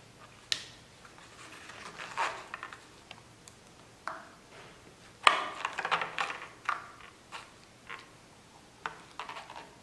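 Metal rubber dam clamp in clamp forceps clicking and scraping against a plastic typodont molar as one side of the clamp is released and reseated under the rubber dam sheet to seal it. Scattered sharp clicks and short scrapes, the loudest click about five seconds in, followed by a quick cluster of smaller ones.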